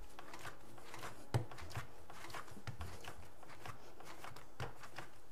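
Hands patting and shaping a three-pound lump of soft clay on a work table: faint scattered rustles and pats, with a sharper knock about a second and a half in and another near the end.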